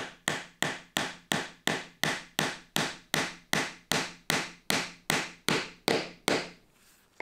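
Ball-peen hammer tapping on a plywood block to seat a brass drawer pull, set in epoxy, into a pattern-plywood drawer front: steady, even taps about three a second, stopping about six and a half seconds in.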